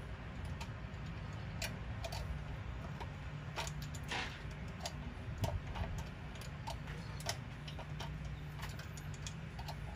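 Light, irregular metallic clicks of a 10 mm wrench working the nylon-insert lock nut that holds a Mikuni carburetor to the intake manifold, with one brief scrape about four seconds in, over a low steady hum.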